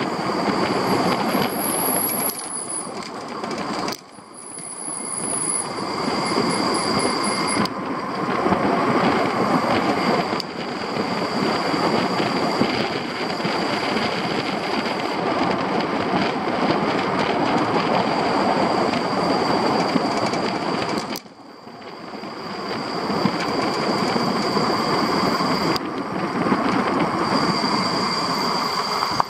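Steady road and wind noise with a continuous rattle during a downhill ride on the vehicle carrying a metal front rack, with a thin high squeal coming and going in the first several seconds and again near the end. The noise drops away suddenly twice, about four seconds in and about two-thirds of the way through, and builds back up.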